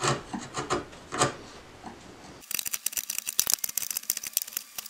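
A steel bench chisel paring white oak by hand, cleaning out the end of a stopped dado. A few crisp slicing strokes come in the first second or so. From about halfway there is a fast run of small crackling cuts as the shavings curl away.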